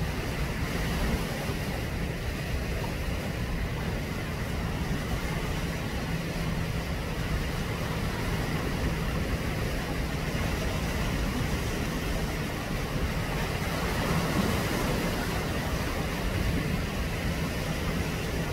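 Steady outdoor wind rumble on the microphone mixed with sea washing against rocks, swelling a little about fourteen seconds in.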